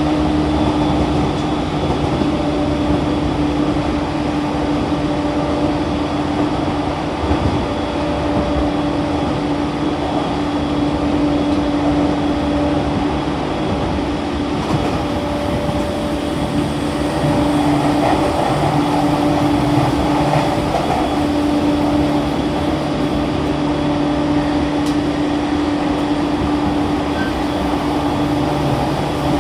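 Running sound of a JR East E231 series 1000 electric commuter train heard from inside the car at speed: steady wheel-and-rail noise with a steady hum from the traction motors and inverter.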